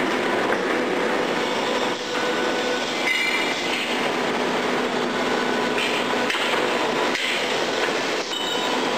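Steady, dense machine noise from screw brick presses running on a factory floor, with a few sharp knocks and metallic clinks.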